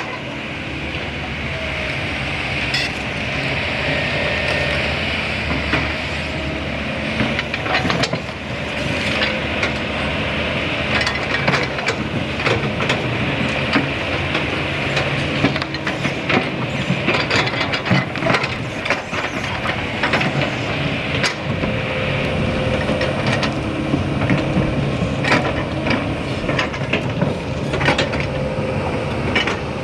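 Kobelco excavator's diesel engine running steadily under load while it digs, with irregular clanks and knocks of the bucket scraping and striking rocks, growing frequent after the first several seconds.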